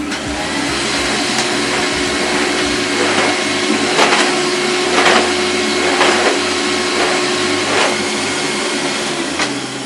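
A 30–40-year-old vacuum cleaner is switched on and runs with a steady rushing hum. From about three seconds in there are brief louder surges about once a second. Near the end it is switched off and winds down.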